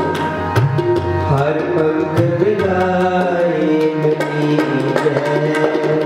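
Harmonium playing the kirtan melody in held notes that step from one pitch to the next, with tabla striking a steady rhythm beneath.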